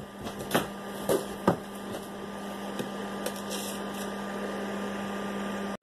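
A few light knocks, then the steady hum of a kitchen appliance running, cut off abruptly at the end.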